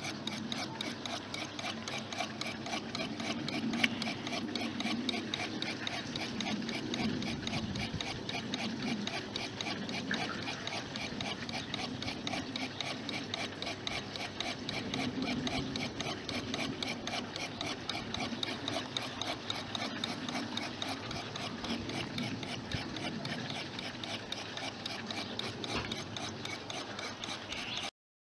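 Home-built Newman-type motor spinning, with a steady rapid ticking and rubbing; the sound stops suddenly near the end.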